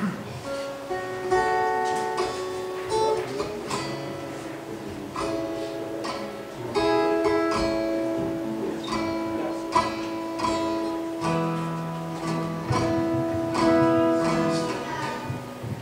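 Instrumental music on a guitar, with plucked notes and strummed chords ringing and changing through the passage, and no singing.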